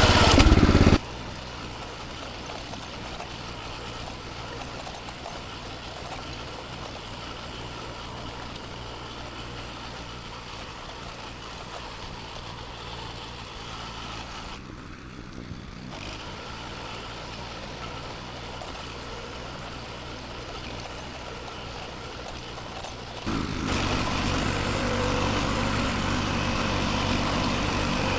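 Farm machine engine running steadily while working a vineyard. It is loud for about a second, then much quieter for a long stretch, and louder again near the end.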